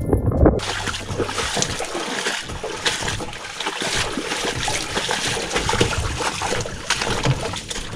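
Footsteps splashing and squelching through a wet, muddy portage trail, heard from under a canoe carried overhead. They start about half a second in as an even hiss, broken by many short splashes.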